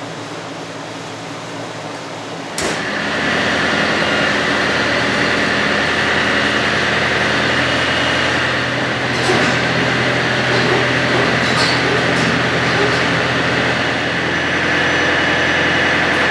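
Tractor engine running steadily, getting abruptly louder about two and a half seconds in, with a few light clanks over it.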